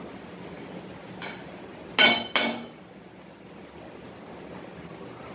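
A spatula clinks twice against a steel kadhai while stirring a thick broken-wheat and jaggery mixture, two sharp ringing metal knocks about two seconds in, after a lighter tap. A steady low hiss runs underneath.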